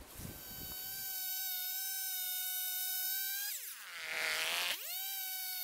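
Small two-stroke chainsaw running at high revs while ripping a log lengthwise through a wooden beam-guide mill, a steady high whine. About three and a half seconds in the pitch drops sharply and a rougher noise swells for about a second, then the engine climbs back to its steady whine.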